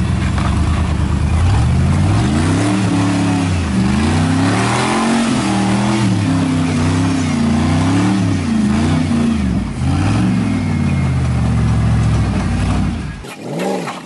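Full-size Chevy 4x4 pickup's engine revving hard under load as it climbs a rock ledge, pitch surging up and falling back again and again. The sound cuts off abruptly near the end.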